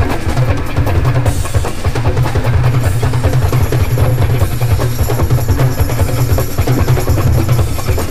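Live rock band music with a steady beat, led by drum kit and percussion. The band is arranged with a guest on congas.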